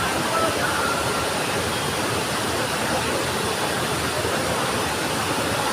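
Steady rushing of water, an even noise with no break: floodwater flowing.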